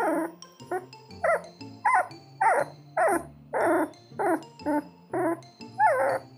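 About a dozen short, high puppy whimpers, one roughly every half second, each bending in pitch, over background music with low held notes.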